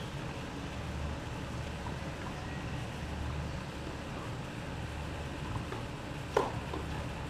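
Steady wind and low rumble on the microphone, with a few faint distant pops of tennis balls being struck during a rally and one sharper, clearer pop about six seconds in.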